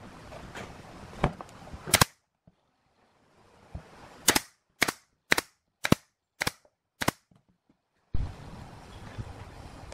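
Nail gun firing brads into a pine board with sharp single shots: two in the first two seconds, then a run of six about half a second apart. A steady hiss of background noise starts near the end.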